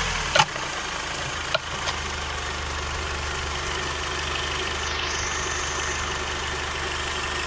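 Engine idling steadily just after a rev has died away, with two short sharp clicks in the first two seconds. About five seconds in, a thin high whistle starts and holds steady: the engine whistle the owner is recording.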